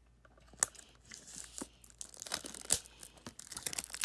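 Protective plastic wrapping on a boxed book set being torn and crinkled by hand: scattered crackles and a few sharp clicks, starting about a second in and getting busier.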